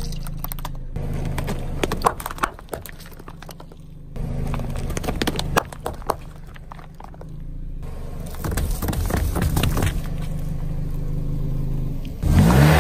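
A car's tyre rolling slowly over food and packaging and crushing it, with crackling and snapping, while the engine runs with a steady low hum. Several separate crushes follow one another, and a loud burst of crushing comes near the end as a row of juice pouches is run over.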